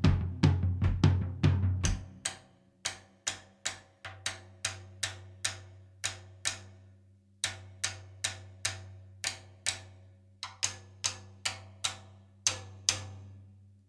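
Drum kit played in an even beat of about two to three strikes a second. Heavy low hits for the first couple of seconds give way to lighter, ringing strikes over a low steady hum, with a brief pause about halfway and a stop just before the end.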